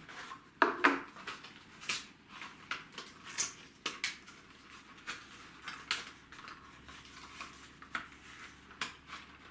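Handling noise from unboxing a smartphone's box contents: a string of light, irregular clicks and taps as the paper instruction booklets and cardboard inserts are picked up and set down.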